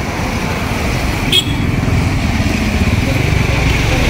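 Motorcycle engine running as it passes close by, growing steadily louder, with a brief sharp click about a second and a half in.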